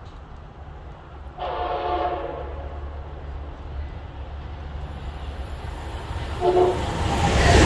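Horn of an approaching passenger train, one blast about a second and a half in and a shorter one near the end. Under it, the rush of the train running through at speed grows steadily louder and is loudest at the end.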